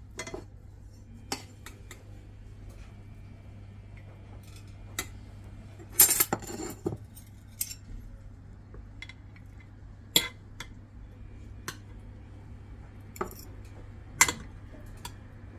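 Kitchen utensils and dishes clinking and knocking now and then, over a low steady hum. A denser clatter comes about six seconds in, with sharp single clinks around ten and fourteen seconds.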